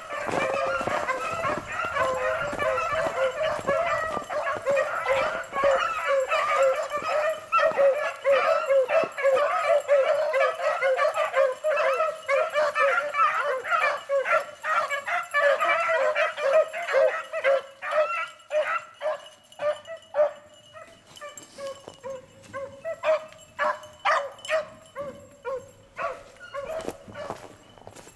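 A pack of beagles baying together in full cry as they run a rabbit's track, a dense chorus of overlapping cries. Past the middle it thins to scattered single cries that grow fainter toward the end.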